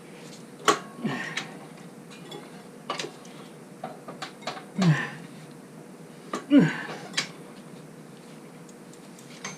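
Irregular metal clanks and clinks of tire-changing tools against a motorcycle wheel rim as the tire is pried off its bead, the loudest about five and six and a half seconds in, some with a short falling squeak.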